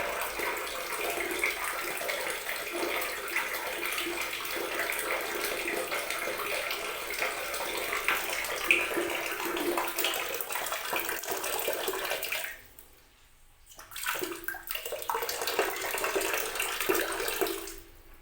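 Water running in a steady stream, cut off about two-thirds of the way through, then turned back on for a few seconds and stopped again near the end.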